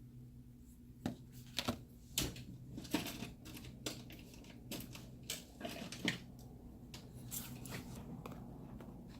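A flathead screwdriver scraping and clicking against a phone's frame in short, irregular strokes, clearing off old adhesive, over a faint steady hum.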